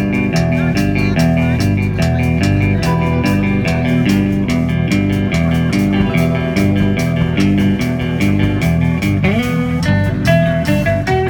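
Band playing blues-rock: electric guitar and bass guitar over a steady beat, with a rising guitar slide about nine seconds in.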